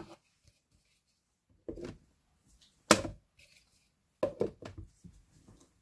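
A few short plastic knocks and clicks from handling a blender jar as its lid is fitted, with quiet between them; the blender motor has not started yet.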